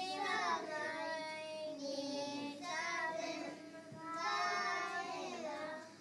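A group of young children singing a song together, in phrases of held notes with short breaks between them.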